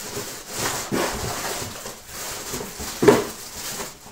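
Hands handling and rustling packaging while unpacking a tactical headset, with a sharper knock about three seconds in.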